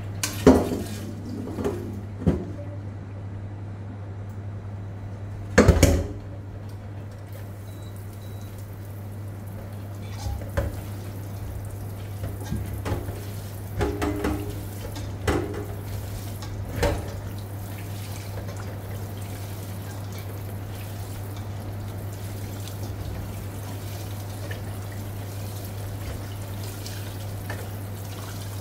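A stainless-steel pot clanking against a steel kitchen sink while diced pomelo pith is tipped into it, then a tap running into the pot as hands knead and rinse the pith in the water. A few more knocks come midway, and the loudest clank is about six seconds in.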